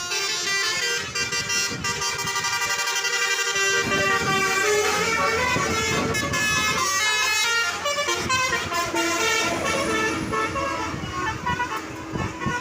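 Bus 'telolet' horn, a Basuri multi-tone air horn, playing a quick tune of stepping notes with little pause, over the noise of buses on the road.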